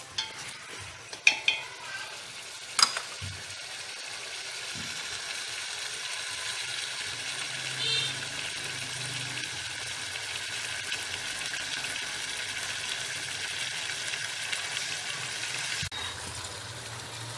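Pieces of marinated duck sizzling steadily as they sear in a stainless steel pot until the meat firms up. There are a few sharp knocks of the stirring utensil against the pot in the first three seconds.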